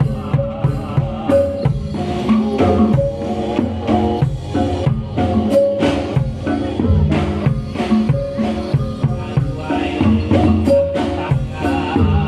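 Live Javanese Reog Bantul accompaniment: drums beating a quick, steady rhythm under a short repeating melody of struck, pitched percussion.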